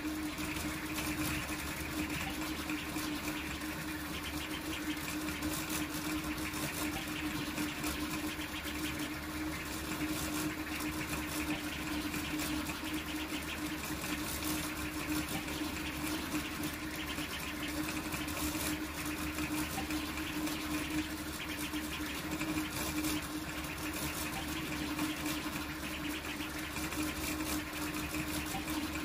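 Large toolchanger 3D printer printing at high speed: its motors buzz and whine continuously as the print head makes rapid short moves, over a steady hum.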